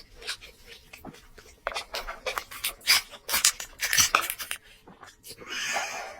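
Close-miked eating sounds: wet chewing and mouth smacking in irregular bursts, then a longer noisy stretch near the end.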